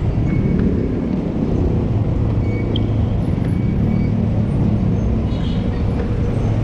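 Steady low rumble of motor vehicle engines and road traffic.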